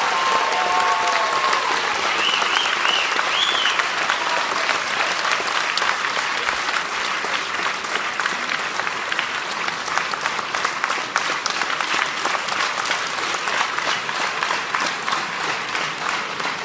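Audience applauding, dense continuous clapping, with a few short high-pitched calls about two to three seconds in.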